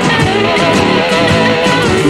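Live electric blues band playing an instrumental passage: two loud, distorted electric guitars over drums, with some bending guitar notes and no singing.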